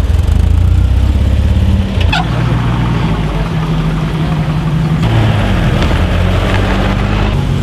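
Engines of classic cars running at low speed as the cars drive slowly past one after another. The engine note changes abruptly about two seconds in and again about five seconds in, with a brief squeak about two seconds in and a falling engine note near six seconds.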